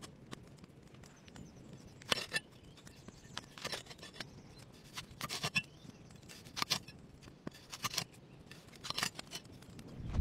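A large knife slicing through raw potatoes on a stone: about nine crisp cuts, some coming in quick pairs.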